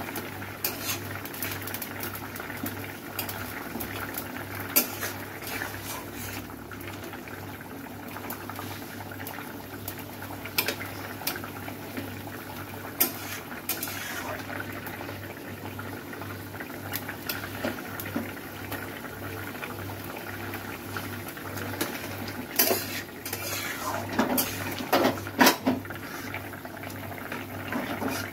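Spatula knocking and scraping against an aluminium kadai while stirring a vegetable curry that bubbles steadily as it simmers. Scattered clinks throughout, with a quicker run of knocks near the end.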